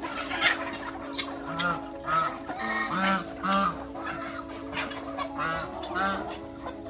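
Farm poultry calling: short, repeated calls, about ten in seven seconds, over a steady droning background of held tones.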